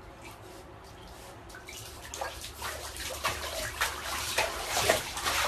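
Water splashing in a shallow bathtub with a Shiba Inu standing in it. It is faint at first, then from about two seconds in comes a quick, irregular run of splashes that grows louder.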